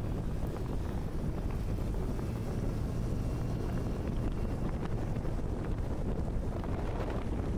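Steady wind rush buffeting the microphone on a moving motorcycle, with a low, even drone of road and engine noise underneath.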